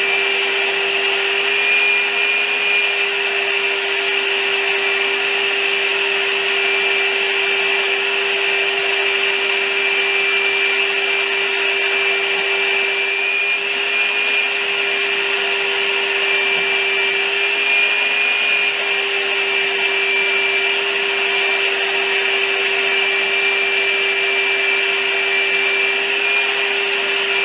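Paint spray rig running while a bed frame is sprayed: a loud, steady hiss of air with a constant whine underneath.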